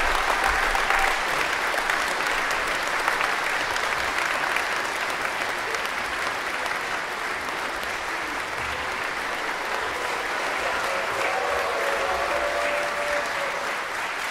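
Audience applauding steadily, with dense clapping that runs without a break.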